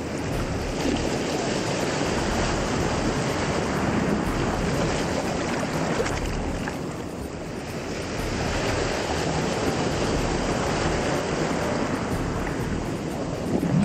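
Small lake waves washing in and foaming up a shallow sand-and-pebble shore, rising and falling in swells, with a lull about seven seconds in.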